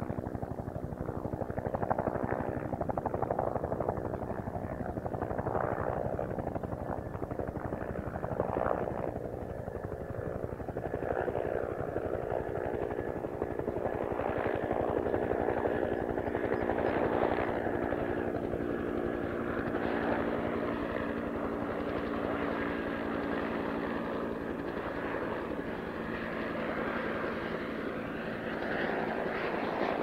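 UH-1J helicopter in flight: its two-blade main rotor beats steadily in a fast pulse over a steady whine from its turbine.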